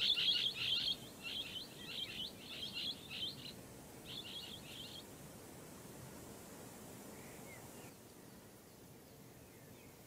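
Blue-headed parrot (Pionus menstruus) calling: a rapid series of short, sharp, high calls in quick clusters for about five seconds, then it stops.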